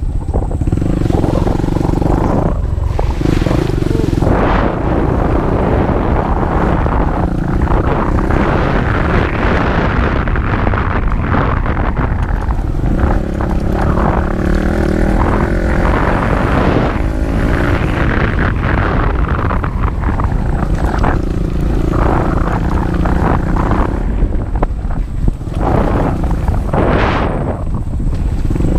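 Off-road motorcycle engine running under way on a rough dirt track, its revs rising and falling as the throttle is opened and eased off several times.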